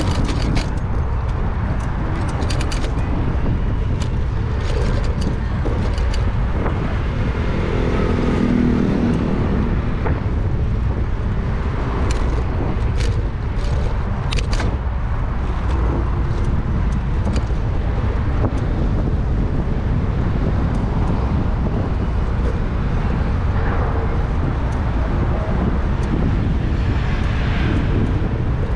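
Steady wind rumble on the microphone of a camera riding along on a bicycle, mixed with road and street traffic noise. There are scattered sharp clicks, and a pitched hum rises and fades about eight seconds in.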